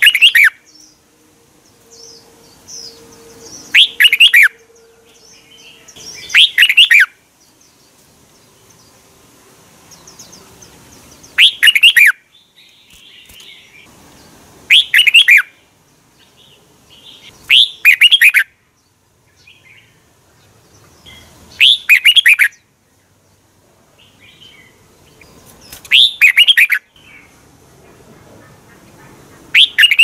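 Red-whiskered bulbul singing: short, loud phrases of a few quick falling notes, repeated every three to four seconds, with soft chirps in between.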